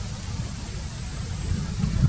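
Steady outdoor rushing noise with a fluctuating low rumble that grows louder near the end.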